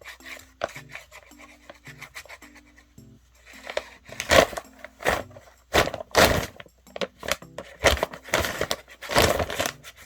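A paper bag rustling and scraping in a series of loud, irregular strokes as a cat thrashes and scrabbles at it, over light background music.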